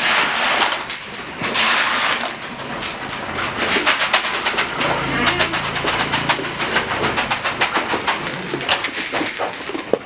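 Feed poured from a plastic tub into a sheep trough, rustling at first, then a dense run of crackling clicks from about three seconds in as the sheep crowd the trough to eat.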